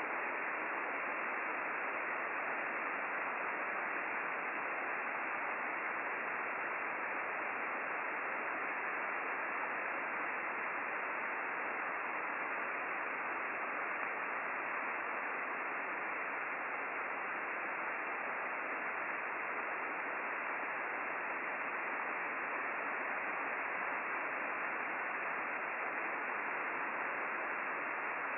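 Steady hiss from an Icom IC-9700 transceiver receiving in upper-sideband mode on the RS-44 satellite downlink, with no station on the frequency: plain receiver static, dull and without highs.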